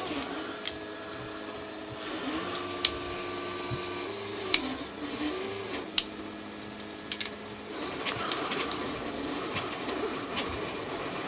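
Sharp clicks and taps as small metal bolts and nuts are handled and knocked against 3D-printed plastic parts during hand assembly, a few seconds apart.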